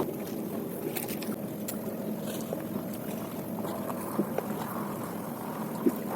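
Steady hum and water noise of a small fishing boat on a river, with a few light knocks.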